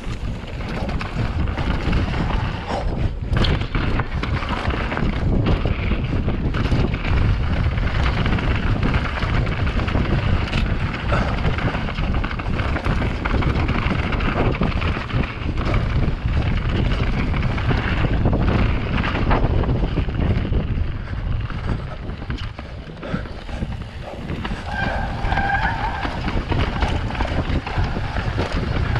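Wind buffeting the microphone while a mountain bike rolls fast down a steep dirt trail, the bike rattling with scattered knocks over bumps. A short squeal comes near the end.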